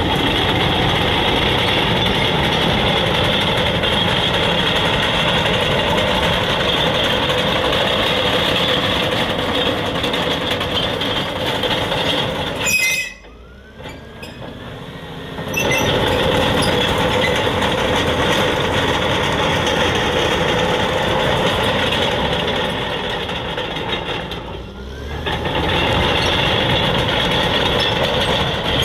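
Caterpillar D6R crawler dozer running, its diesel engine mixed with the clank and squeal of steel tracks. The noise is steady and loud, dropping away briefly twice.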